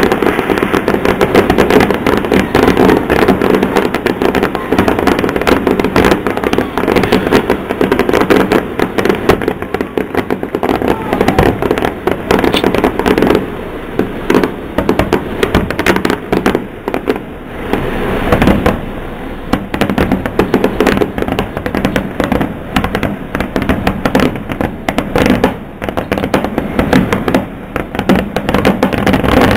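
Fireworks display: a dense, unbroken barrage of aerial shell bangs and crackle, thinning briefly a few times in the second half.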